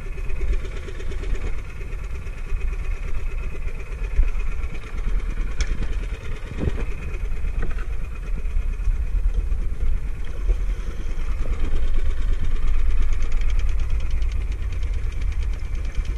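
Engine of a small bamboo-outrigger fishing boat running steadily, a low pulsing rumble, with water rushing along the hull.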